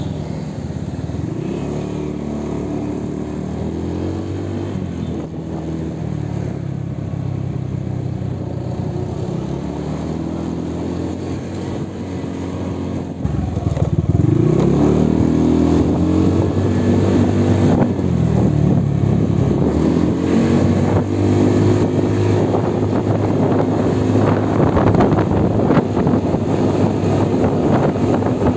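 Motorcycle engine running while ridden, its pitch rising and falling with the throttle. About halfway through it gets louder and climbs in pitch as the bike accelerates.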